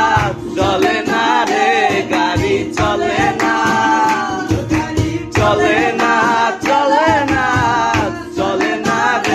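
A group of men singing a Bangla folk song loudly together, with acoustic guitar strumming and hand claps keeping the beat.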